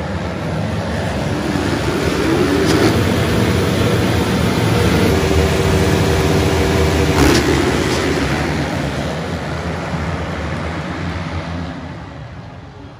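A full gate of motocross bikes accelerating hard off the start, many engines revving together at full throttle. The noise swells over the first few seconds, a sharp crack cuts through about seven seconds in, and the sound fades as the pack draws away near the end.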